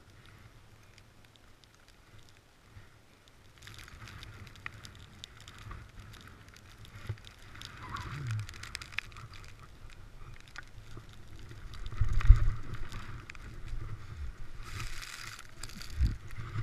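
Skis sliding and scraping over snow, quiet at first, then coming in waves of hiss as turns are made. Wind hits the microphone in low rumbles, loudest about twelve seconds in.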